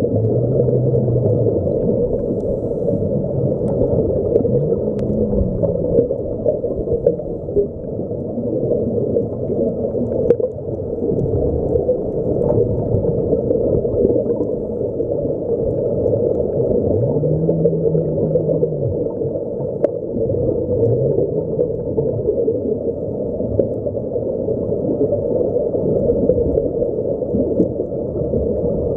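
Underwater noise picked up by a submerged camera: a steady muffled rush, all low in pitch. A low hum rises, holds and falls again several times, each for a second or two.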